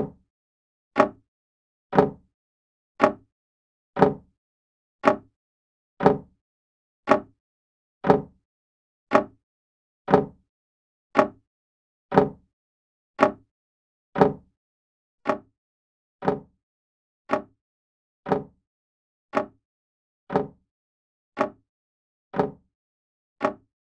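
Old grandfather clock ticking steadily, one sharp tick a second, its escapement beating the even rhythm of a seconds pendulum.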